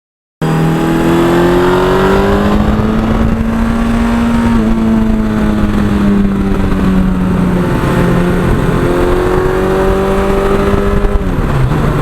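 1982 Suzuki GS1100E's air-cooled inline-four engine pulling under way. Its pitch climbs, drops about four seconds in, climbs again and falls near the end, as it does through gear changes.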